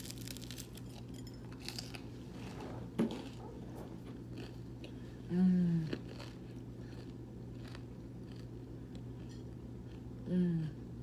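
Close-up chewing and mouth sounds of someone eating pizza, with small wet clicks throughout. Twice, about five seconds in and again near the end, a short hummed sound falls in pitch. A steady low hum runs underneath.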